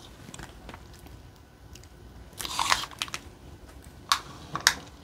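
Diamond painting canvas and its plastic cover crinkling as hands smooth it flat and lay a tape measure across it: a longer crinkle about halfway through and two short sharp crackles near the end.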